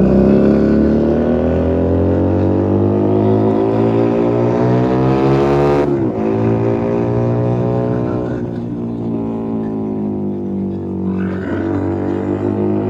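Keeway SCR 250 motorcycle engine through a Rez Speed aftermarket exhaust, under acceleration on the road. The revs climb for about six seconds, drop sharply at an upshift, then build again, with another dip and a fresh climb near the end.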